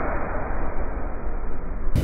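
Irish Rail 8520 class DART electric train pulling away from the platform: a steady rumble of wheels and traction motors on the rails.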